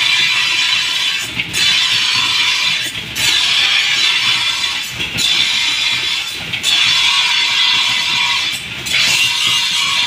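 Steel sword blade being sharpened on a grinding wheel: a loud, gritty hiss of metal against the wheel. It breaks off for a moment every couple of seconds as the blade is lifted and passed over the wheel again.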